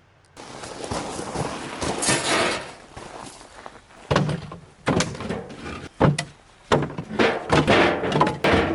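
Rustling handling noise, then a run of sharp knocks and thuds that come closer together towards the end, like a lid or door and objects being moved about.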